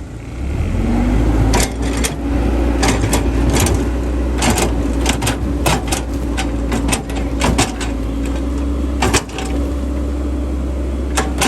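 Small electric motor of a radio-controlled model construction vehicle, whining up about half a second in and then running steadily, with many sharp clicks and knocks from its moving parts.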